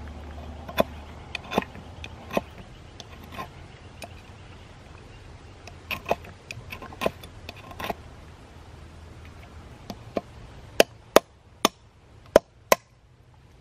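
Irregular sharp chopping knocks, then five louder strikes in quick succession near the end.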